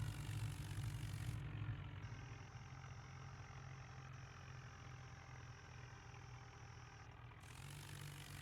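A steady, low engine hum, louder for the first two seconds and then settling quieter.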